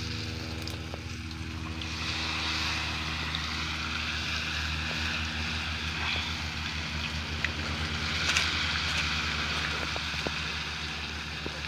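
Batter frying in hot oil, a steady sizzle that swells a little about two and a half seconds in and again about eight seconds in, over a steady low hum.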